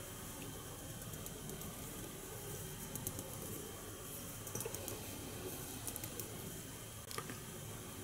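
Quiet handling sounds of fly tying, as thread and dubbing are twisted into a dubbing rope: faint scattered small ticks and rustling, with one sharper click near the end.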